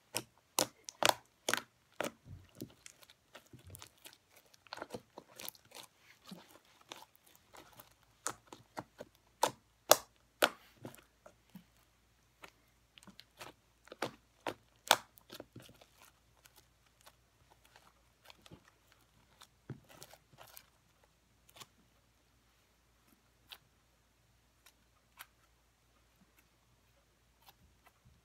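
Foam bead slime being squished and pressed by hand: irregular crisp crunching and popping clicks, dense for the first fifteen seconds or so, then sparser and fainter.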